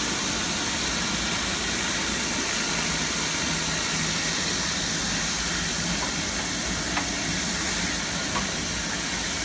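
Steady hiss and suction rush of a rotary spinner tile-cleaning tool spraying water and vacuuming it back up through its hose as it is worked across wet tile, with a low machine hum beneath and a couple of faint ticks near the end.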